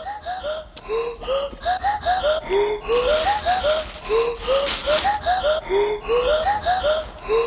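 Background music: a quick looping melody of short, bright notes that climb in small steps, repeating about every second and a half over a steady low bass.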